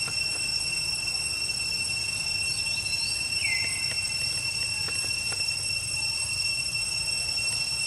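A steady high-pitched insect drone rings without a break. About three and a half seconds in there is a brief squeak, and a few faint clicks come after it.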